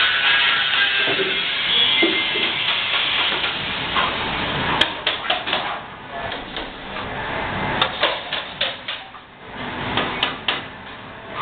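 Plastering tools working a wet plaster wall: a steady scrubbing hiss of a tool drawn over the surface, then from about five seconds in a series of sharp clicks and taps as a steel trowel works the wall.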